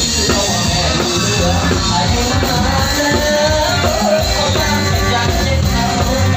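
Live band music played loud through speaker stacks: a drum kit keeping a steady beat under a wavering melody line.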